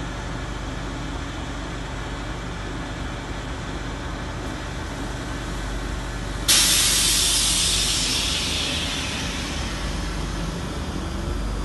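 South Western Railway Class 458 electric multiple unit standing at the platform, its equipment humming steadily. About six seconds in, a sudden loud hiss of air breaks out and fades away over several seconds, typical of the air brakes releasing before departure. Near the end a faint whine comes in.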